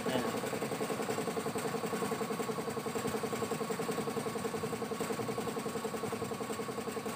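Honda Vario scooter's single-cylinder four-stroke engine idling steadily with an even, fast pulse.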